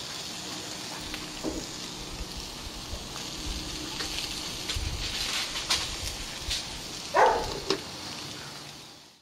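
Asparagus sizzling in olive oil in a hot cast iron wok over charcoal: a steady hiss with scattered small crackles and one louder pop about seven seconds in. The sound fades away near the end.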